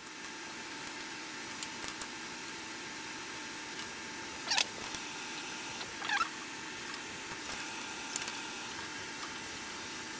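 Open-end wrenches clicking and scraping against the metal fittings of an inline fuel filter as they are tightened, with two brief squeaks about four and a half and six seconds in, over a steady faint hum.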